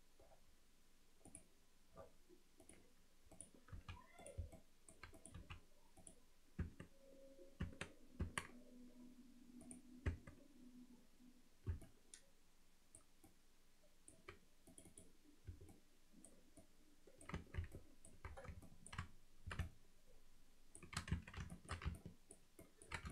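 Scattered clicks of a computer mouse and keyboard keys pressed one at a time, with quicker runs of clicks about two-thirds of the way through and near the end.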